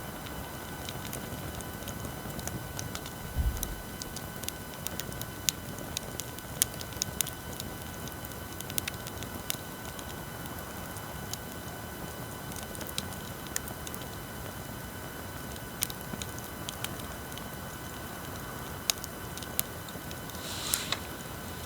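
Wood fire crackling with scattered sharp pops, over a steady electrical hum and whine from recording-equipment noise. A low thump comes about three and a half seconds in, and a short hiss near the end.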